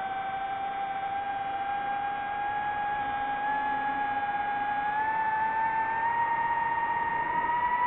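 DJI FPV drone's motors and propellers, a steady whine that rises a little in pitch about five seconds in as the throttle increases.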